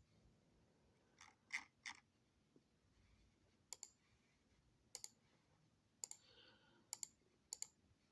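Near silence broken by faint, scattered clicks, several of them in quick pairs.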